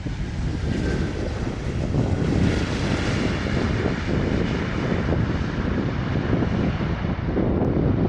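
Jet airliner engines passing close on a landing approach, a steady broad rush of engine noise that swells about two to three seconds in, over a low rumble.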